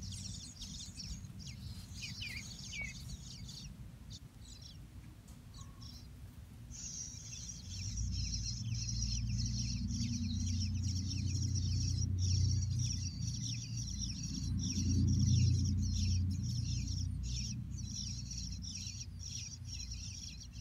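Small birds chirping over a dense, high, rapid chirring that becomes continuous about seven seconds in. Underneath is a low rumble that swells through the middle and is the loudest part.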